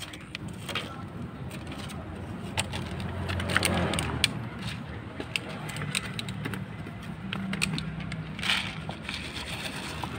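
Cats crunching dry cat food, with many sharp clicks of kibble. Near the end, kibble rattles out of a plastic jar.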